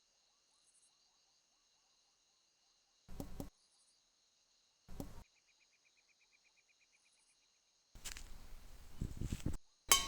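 Faint sound-effect ambience of crickets chirping, with a rapid chirping trill about halfway through. It is broken by a few short noisy bursts, the loudest ending in a sharp click near the end.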